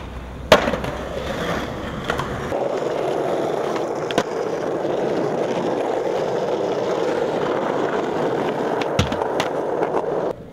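Skateboard on street pavement: a loud clack of the board hitting the ground about half a second in, then the steady rolling rumble of hard wheels over rough pavement from about two and a half seconds, broken by a few sharp clacks of the board, cutting off abruptly just before the end.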